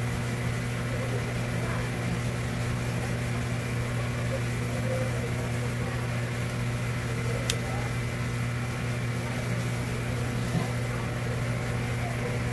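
A steady low machine hum at an even level, with a single sharp click a little past the middle.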